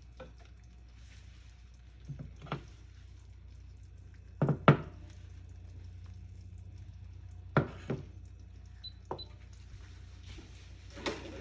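Kitchen cookware clatter: a handful of separate knocks and clunks of a pan, lid and utensils, the loudest a quick double knock about four and a half seconds in, over a steady low hum.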